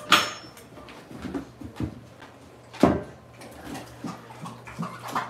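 Two sharp knocks with a brief metallic ring, one at the start and one about three seconds in, over faint squeaks and whimpers from a litter of newborn Boerboel puppies.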